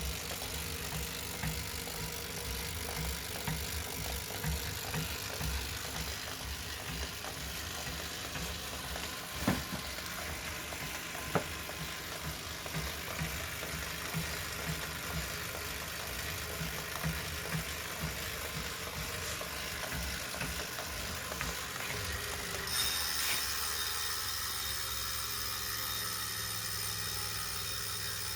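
2018 Wahoo Kickr smart bike trainer running with a knocking noise: irregular low thuds under a steady whir, with two sharp knocks about a third of the way in. Near the end the low thudding gives way to a steadier hiss.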